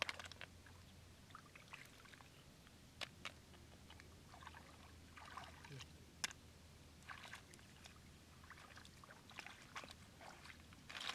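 Faint splashing and sloshing of shallow water stirred by wading feet and hands. A few sharp clicks stand out, most likely snail shells knocking together as they are dropped into a wicker basket.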